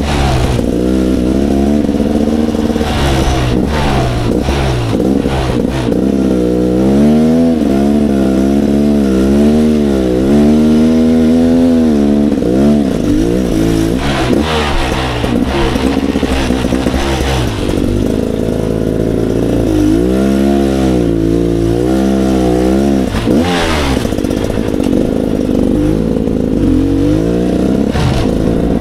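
Dirt bike engine being ridden, its pitch rising and falling again and again as the throttle is opened and closed, with a few brief sharp clacks.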